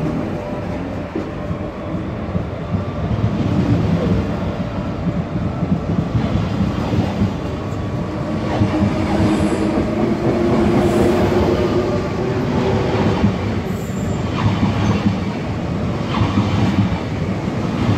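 Electric double-deck RER D commuter train pulling out of the station and gathering speed past the platform. Its motors give a rising whine over the steady rumble of the wheels on the rails.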